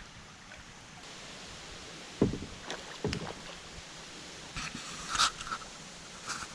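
A kayak being paddled on a flowing stream: two knocks on the hull about two and three seconds in, then lighter clatter and splashes of the paddle, over a steady wash of moving water.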